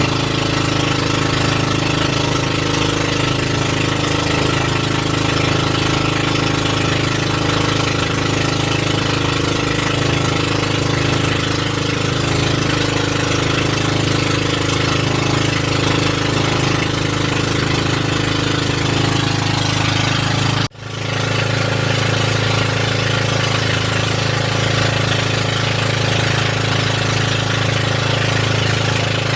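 Boat engine running steadily at a constant speed, with a broad hiss over it. About two-thirds of the way through the sound cuts out abruptly for a moment and comes straight back.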